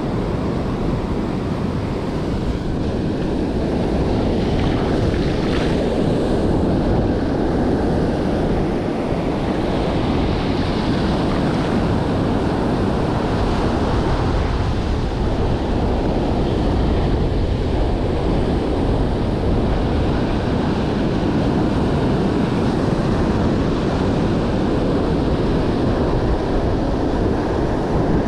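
Ocean surf breaking and washing up the sand in a steady rush of water, with wind rumbling on the microphone.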